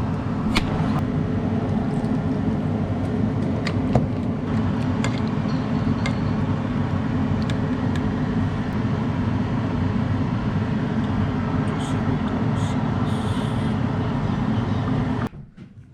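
Steady low rumble of a moving vehicle, with a few faint clicks; it cuts off suddenly near the end.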